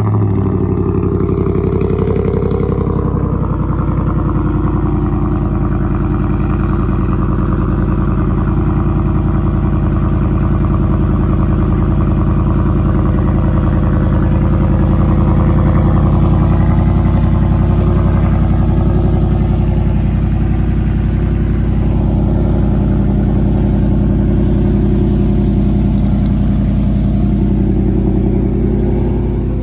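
2016 Ford F-150's 5.0-litre Coyote V8 running just after starting, through an exhaust with the muffler deleted. Its idle eases down over the first few seconds, then holds steady.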